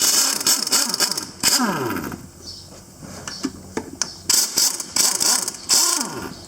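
Power impact wrench, fitted with a 15 socket, run in several short bursts on the tractor's PTO bolts, the motor's whine falling away after some of the bursts.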